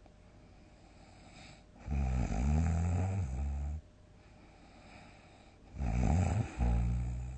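A sleeping person snoring loudly: two long, low, buzzing snores about four seconds apart, the second broken by a brief catch partway through.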